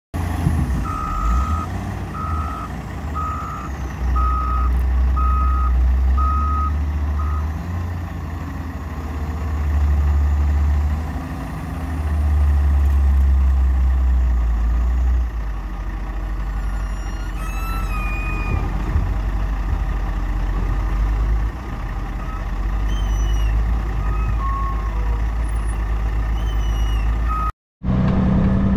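Heavy-equipment back-up alarm beeping about once a second, seven times, over a wheel loader's diesel engine. The engine then revs up in several swells as the loader lifts and dumps a bucket of dirt into a dump truck.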